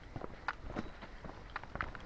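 Footsteps of a person walking on the forest floor: a quick, uneven series of short crunching steps, several a second.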